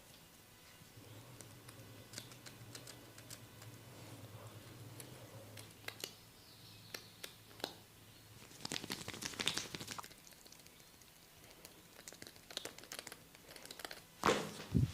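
Hands rubbing and scratching over skin and hair during a massage: scattered crackly clicks and rustling, with a louder stretch of rustling about nine seconds in and a few sharper clicks near the end.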